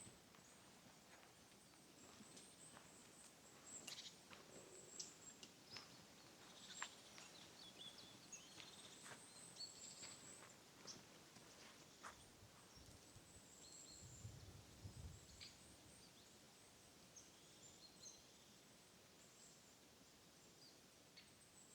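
Near silence: quiet forest ambience with faint, high broken chirping from small birds and scattered light clicks.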